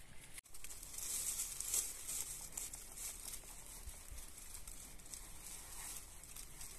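Dry fallen leaves rustling and crackling with many small crisp ticks as a person and a dog shift on a bed of leaves.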